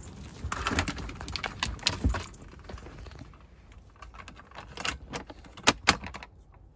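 Scrabbling and clattering knocks as a small dog on a leash climbs into the back of a car, then a handful of sharp clicks and rattles from the wire door of a plastic pet carrier, loudest near the end.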